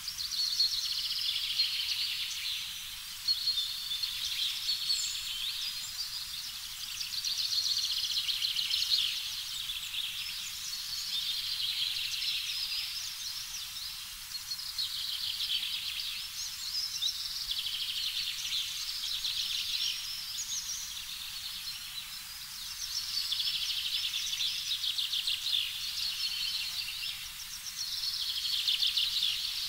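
A nature-sound ambience of high chirping and trilling animal calls, rapidly pulsing, swelling and fading every few seconds.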